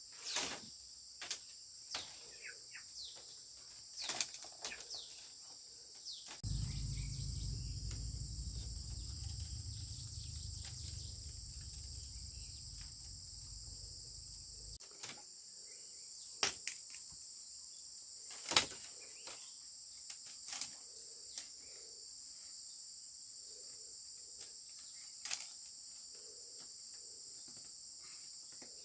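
Steady high-pitched insect chorus, with scattered sharp knocks and clicks. A low rumble comes in about six seconds in and stops about fifteen seconds in.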